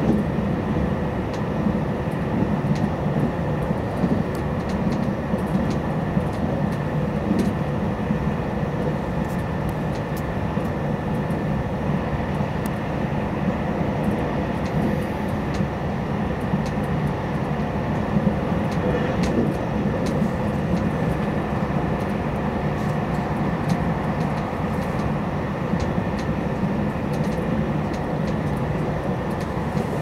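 Inside the passenger car of a JR Hokkaido 789 series limited express electric train running between stations: a steady rumble of wheels on rail, with scattered faint ticks.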